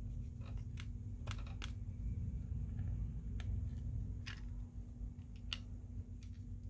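Light, scattered clicks and ticks of tweezers against the small parts inside a Samsung Galaxy A20 as its earpiece speaker is lifted out, about ten in all, over a faint steady hum.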